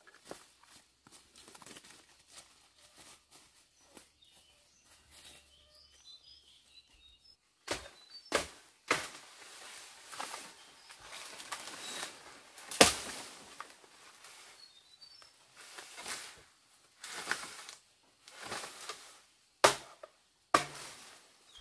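Crunching and rustling of dry leaves, bamboo litter and brush underfoot and by hand, with sharp cracks of twigs and stems, irregular and louder from about a third of the way in. Faint bird chirps come through in the quieter stretches.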